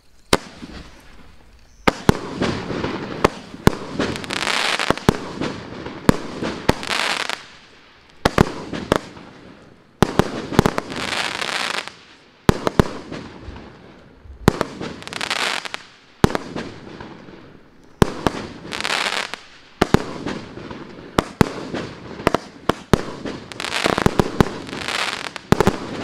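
A 25-shot, 30 mm-calibre fireworks cake firing shot after shot, about one a second. Each shot is a sharp bang followed by a second or two of hiss from the burst.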